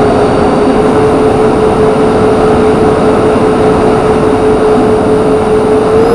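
Twin electric ducted fans of an RC A-10 model whining at a steady pitch over a rush of wind noise on the onboard camera's microphone; the whine rises slightly near the end.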